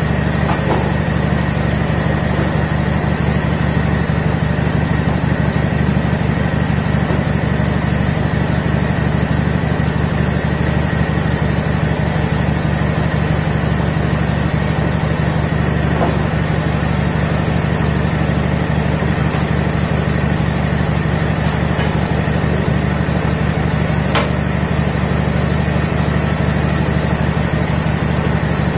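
John Deere 317 garden tractor's Kohler twin-cylinder engine idling steadily, held at idle because its throttle isn't working. A few faint clicks sound over it.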